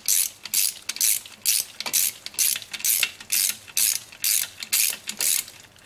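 Hand ratchet with a hex-bit socket clicking in quick back-and-forth strokes, about two a second, as it unscrews the Allen bolts holding an engine's oil pump. The clicking stops shortly before the end.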